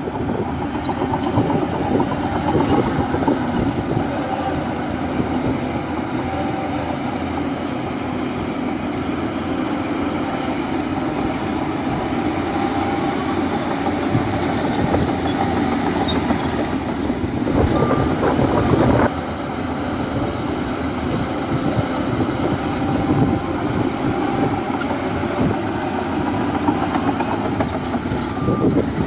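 Crawler bulldozer running: a diesel engine under load with the clanking clatter of its steel tracks. The noise swells briefly about 18 seconds in, then drops suddenly.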